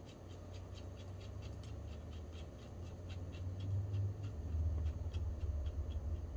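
Light metallic ticking, several a second, from fitting a nut onto the axle of a Sturmey-Archer S3B three-speed hub, over a steady low hum.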